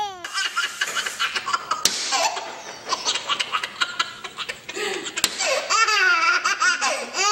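A baby laughing hard, in repeated belly laughs and squealing giggles that swoop up and down in pitch, growing stronger in the second half.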